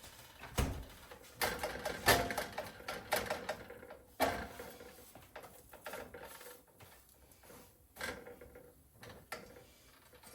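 Irregular knocks, clicks and scrapes of a metal spatula working a frying pan while cooking pancakes, loudest around two and four seconds in.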